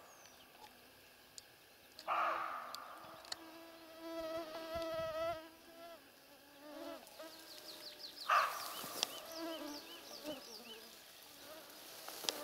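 Siberian roe deer buck giving two harsh alarm barks, about 2 s and 8 s in, after it has noticed the stalking hunter. A mosquito whines close by, and small birds chirp high up after the second bark.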